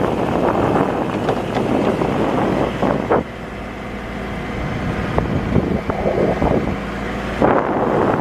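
Diesel engine of a Case 590 Super M backhoe running steadily, with a single knock about three seconds in and wind buffeting the microphone.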